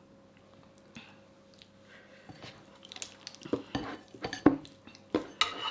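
Eating utensils clinking and knocking against plates and bowls. There are a few light clicks at first, then a busier run of sharp clinks from about two seconds in.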